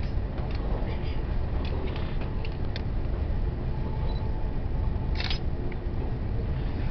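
Steady low rumble of a train running along the track, heard from inside the carriage, with small scattered clicks and a sharper rattle about five seconds in.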